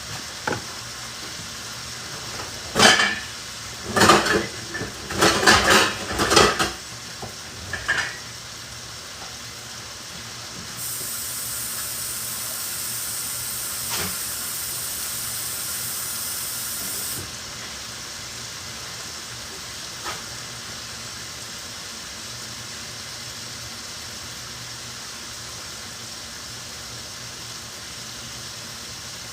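Vegetables sizzling in a skillet, with a handful of clattering knocks of metal cookware a few seconds in. After that a steady hiss runs on, louder and higher for several seconds midway.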